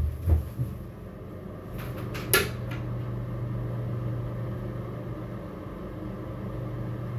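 Bathroom exhaust fan humming steadily. A door thuds as it is pulled open at the start, and there is a sharp click about two and a half seconds in.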